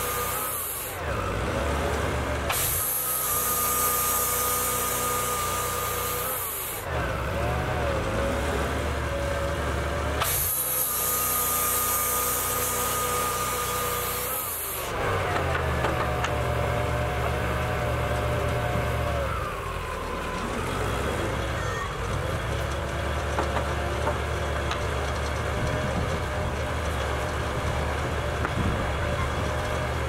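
Wood-Mizer portable band sawmill running, its engine going throughout. Twice, for about four seconds each, the band blade cuts through a cherry log with a high hiss over a steady whine, each cut ending abruptly; the second half is the engine running steadily with a low rumble.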